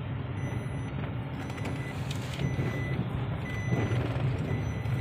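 Steady engine and road hum inside a moving car, with a high electronic beep repeating about once a second.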